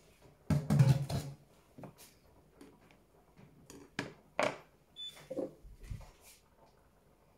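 Kitchen handling noises: a short clatter about half a second in, then scattered knocks and taps as cut lemon pieces are gathered off a cutting board and a glass jar is picked up.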